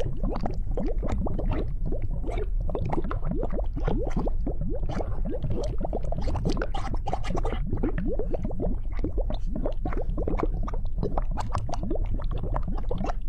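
Lava sound effect: thick molten liquid bubbling and popping, a dense, continuous stream of small bubbles bursting.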